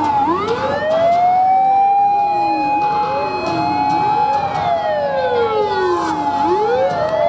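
Several fire engine sirens sounding at once, out of step. The loudest rises to a high pitch, holds for a few seconds, falls away about six seconds in, then starts rising again; fainter sirens rise and fall around it. These are the rescue and ladder trucks responding to the drill.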